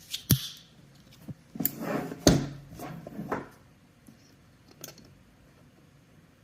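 A cardboard product box being handled and opened: a few sharp taps and clicks, then a stretch of rustling and scraping with one loud knock about two seconds in, and a few faint taps near the end.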